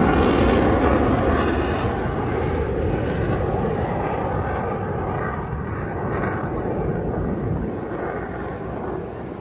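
Blue Angels F/A-18 Super Hornet jets flying past, their loud engine roar fading steadily as they move away.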